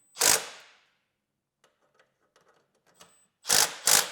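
Cordless power driver running floorboard bolts in with three short bursts on the trigger, one just after the start and two close together near the end, with light clicks of handling between.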